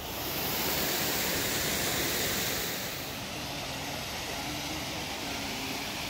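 Steady rushing roar of a waterfall's falling water, a little louder for the first three seconds, then settling slightly lower.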